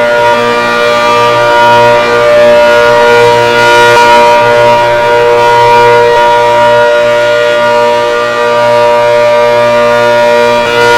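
ACA Hurricane outdoor warning siren sounding a steady, loud tone made of many pitches at once, holding pitch with only slight wavering in loudness.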